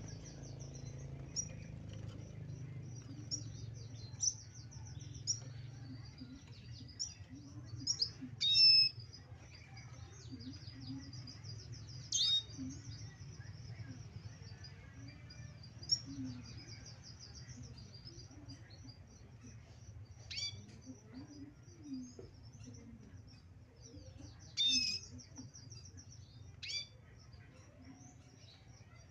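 Male red siskin singing: a run of thin, high twitters and quick trills, broken by a few louder sharp calls. He is starting to sing again while in moult.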